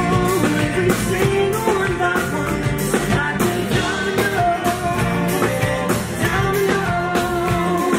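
Live band playing a song on stage: singing over strummed acoustic guitar, keyboard and a steady bass line.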